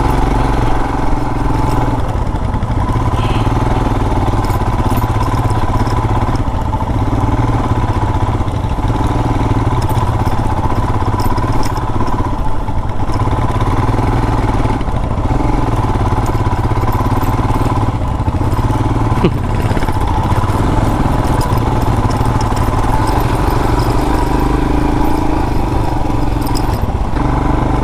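Royal Enfield Himalayan's 411 cc single-cylinder engine running steadily as the motorcycle climbs a dirt trail uphill.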